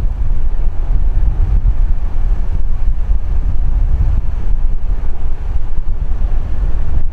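Strong wind buffeting the microphone: a loud, gusting low rumble with no distinct events.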